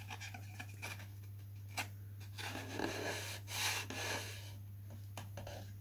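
Faint rubbing and a few light taps from hands handling and pressing thin balsa wood strips onto a wing frame, over a steady low hum.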